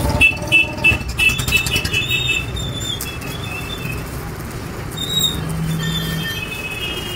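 Stick (arc) welding on mild steel bars: the electrode arc crackling and hissing steadily as a joint of the grille is welded.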